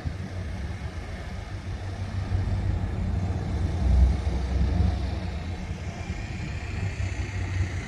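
Pickup truck's engine running and its tyres on the road as it drives slowly, a steady low rumble with a brief louder swell about four seconds in.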